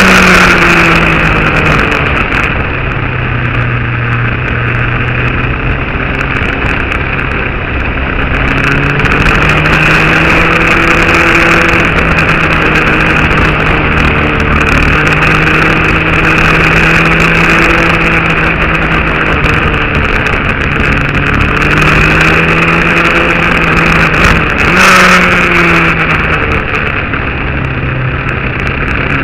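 A motor vehicle's engine running steadily under a constant hissing rush, its pitch slowly rising and falling as the revs change. There is a brief surge about 25 seconds in.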